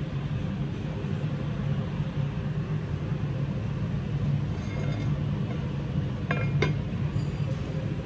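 Steady low hum of room ventilation, with a few light clinks of a red enamelled cast-iron casserole lid being handled and lifted, two of them close together a little after six seconds.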